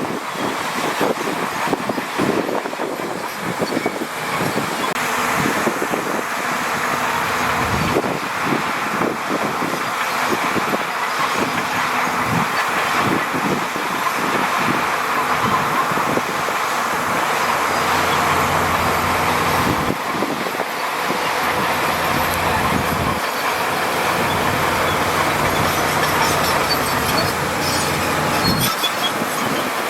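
Diesel engines of heavy earthmoving machinery running steadily, with repeated metallic clanks and rattles throughout.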